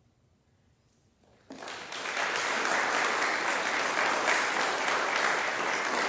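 Audience applause. A moment of near silence is followed about a second and a half in by a sudden start of clapping, which quickly swells to full, steady applause.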